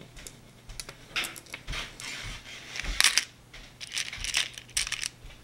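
Small plastic six-sided dice clicking against each other and being set down on a wooden tabletop, a scattered run of light clicks and rattles as they are picked out and counted.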